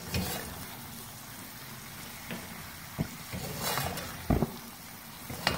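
Metal spatula stirring keema and bitter gourd in a stainless steel pot over the flame, with a steady sizzle from the pot. A few knocks and scrapes of the spatula against the pot, the loudest about three and four seconds in.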